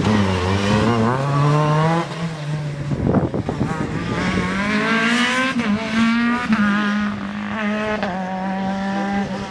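BMW rally car's engine revving hard as the car accelerates past and away. Its pitch climbs, then drops at each gear change, then holds high near the end.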